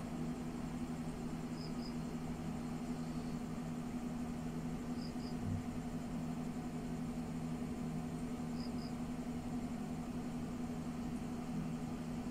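Steady low hum of a small motor running, with a faint high double chirp repeating four times, about every three and a half seconds.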